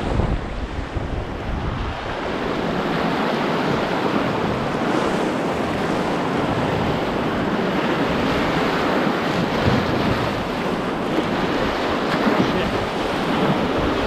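Rushing whitewater of a large river rapid around an open canoe running through its standing waves, a steady loud roar of moving water. Wind rumbles on the microphone for the first couple of seconds.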